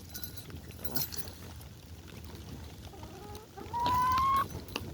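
Chickens, with one hen giving a single loud, drawn-out call that rises slightly in pitch, lasting under a second, near the end.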